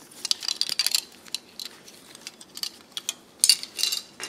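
Plastic housing pieces and circuit boards of a taken-apart two-way radio clicking and clattering as they are handled and set down on a wooden table. A quick run of clicks comes in the first second and another cluster near the end.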